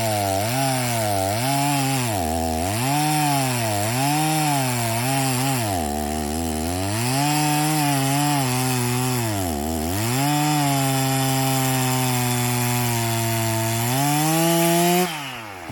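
Stihl chainsaw cutting through a cottonwood log. The engine pitch sags under load and recovers, about once a second at first, then holds steady at high speed. Near the end it rises briefly, then drops off as the throttle is let go.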